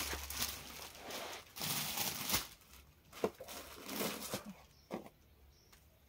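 Plastic packaging and cloth rustling and crinkling as a folded salwar suit is unpacked and spread out by hand, in irregular bursts with a few light clicks that die down after about four and a half seconds.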